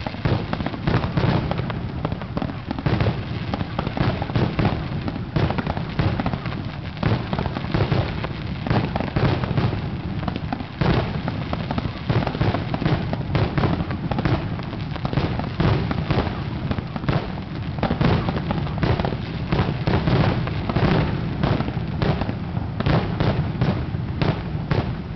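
Multi-shot firework cakes firing, with a rapid, overlapping string of sharp bangs and aerial bursts, several a second.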